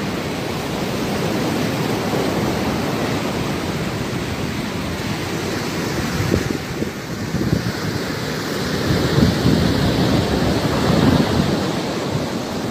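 Ocean surf breaking on a sandy beach, a steady wash of noise, with wind buffeting the microphone in gusts that grow heavier over the second half.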